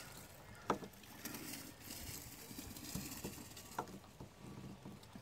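Two sharp clicks, about a second in and near four seconds, from a screwdriver prying at the metal retaining clip on the lower end fitting of a hatch gas strut, with a few fainter ticks between.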